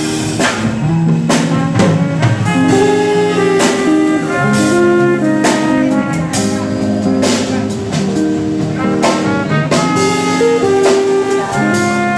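Small band playing a song live: a melody of held notes over repeated percussion hits.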